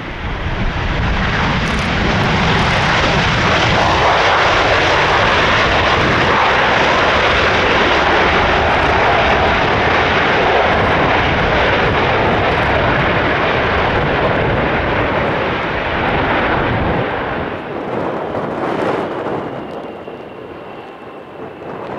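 Airbus A320 jet engines running at high power as the airliner rolls along a wet runway, a loud, steady noise. It builds about a second in and fades over the last few seconds as the aircraft moves away.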